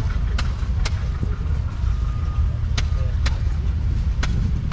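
A low steady rumble with sharp pops at uneven intervals, often in pairs about half a second apart, typical of an old engine firing, with faint voices in the background.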